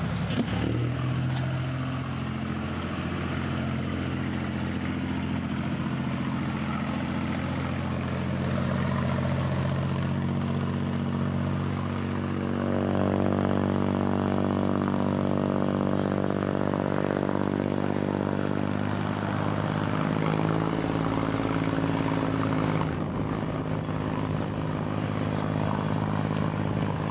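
Small passenger ferry boat's engine running steadily as the boat pulls away from the landing. From about 13 seconds in to about 19 seconds the engine note is fuller and slightly louder, then settles back.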